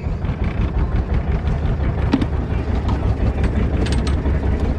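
The small fishing boat's engine running, a steady low rumble, with a few light clicks about two and four seconds in.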